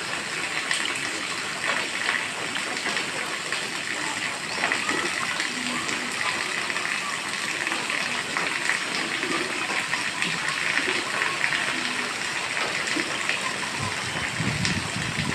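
Steady heavy rain, an even hiss with scattered sharper drop hits; a low rumble comes in near the end.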